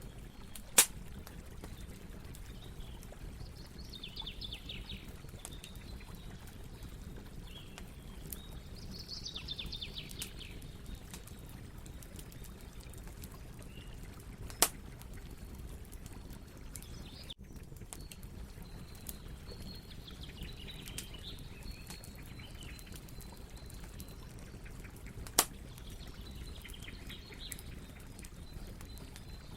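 Campfire burning with a steady low crackle and rustle, broken by three sharp pops: one near the start, one about halfway, one near the end. Fast pulsed chirping trills, crickets, come and go behind the fire.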